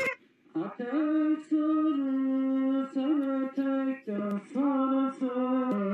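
A solo voice singing a slow phrase of long, held notes with short breaks and small slides between them, ending on a lower note; no instruments.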